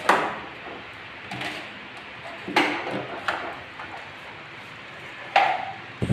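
A handful of sharp knocks and taps, five or so spread out, the first the loudest, over a steady low hiss: a hot glue gun and hands bumping the wall while a paper cutout is pressed on and glued.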